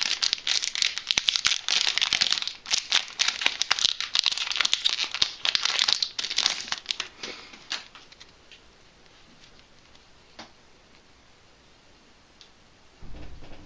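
Foil wrapper of a Yu-Gi-Oh booster pack being torn open and crinkled for about seven seconds, then quiet handling of the cards with a few faint clicks. A brief low thump near the end.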